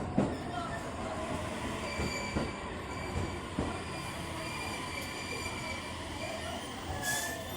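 Train rolling along the station platform, its wheels squealing on the rails, with a few irregular knocks from the wheels over rail joints.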